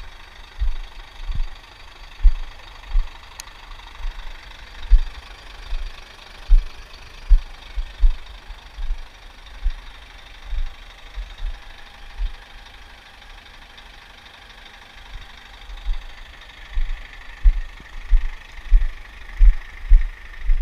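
Scania truck's diesel engine running, a steady hum, under a string of irregular deep thumps that stop for a few seconds around the middle and then resume.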